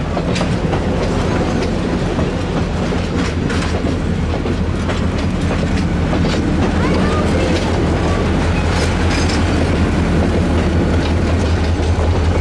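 Passenger cars rolling past close by, their wheels clicking over the rail joints, with the low rumble of a trailing diesel locomotive's engine growing louder in the second half as it nears.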